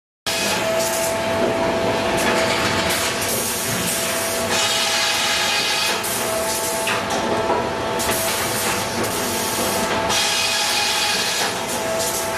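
Grey Series 2000 reversing belt sawbench running under its operator's controls: a loud, steady mechanical din with two steady whining tones, and a hiss that swells and fades every couple of seconds.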